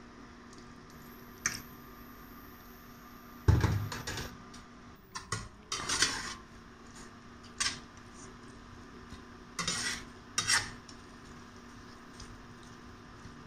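Metal spatula scraping and knocking against a stainless steel frying pan while stirring a thick shrimp-and-chili sambal, in irregular bursts. The loudest knock comes about three and a half seconds in.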